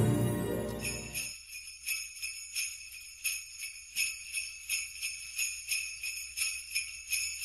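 Jingle bells shaken in a steady rhythm, about three shakes a second, as background music ends about a second in.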